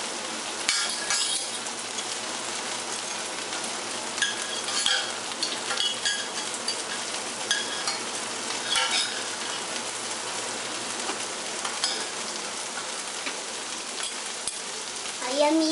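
A fork and spoon scraping, stirring and clinking inside a stainless-steel saucepan, in scattered short strokes over a steady hiss.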